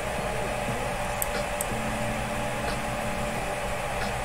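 Steady electrical hum and hiss of background noise, with a few faint clicks about a second and a half in.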